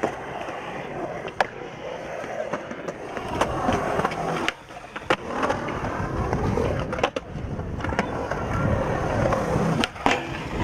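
Skateboard wheels rolling over smooth concrete, with several sharp clacks of the board popping and landing, and the trucks grinding a metal rail near the end.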